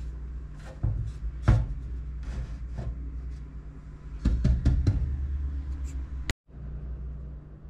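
Wooden cutting board knocked and shifted against the stainless-steel sink rim as it is set in place, several dull knocks over a steady low hum. The loudest knock comes about a second and a half in, and a quick cluster of knocks follows between about four and five seconds in.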